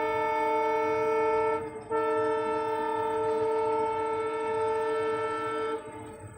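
Indian train's horn sounding two long blasts: a held blast cut by a brief break about two seconds in, then a second blast of about four seconds that stops near the end, leaving a faint rumble.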